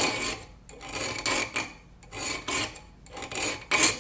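Hand filing a piston ring's end on a flat file clamped in a vise, the ring rasping along the file in a stroke about every second, filed toward the inside of the ring to widen its end gap.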